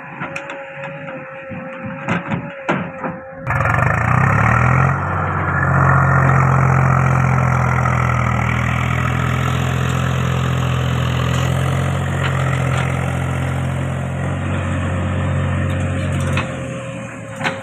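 Diesel engine of heavy earthmoving machinery running steadily at a constant speed. It comes in abruptly about three and a half seconds in, after a few clicks and knocks, and drops away shortly before the end.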